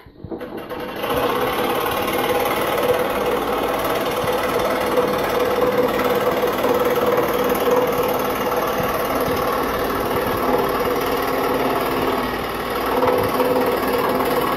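Scroll saw switched on about a second in, then running steadily, its reciprocating blade cutting through wood.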